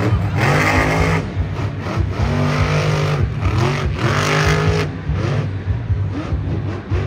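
Grave Digger monster truck's supercharged big-block V8 revving hard, its pitch climbing and dropping back several times as the truck turns on the dirt and pops up onto its rear wheels.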